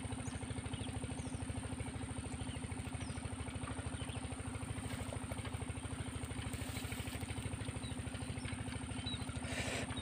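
A small engine idling steadily with an even, fast putter.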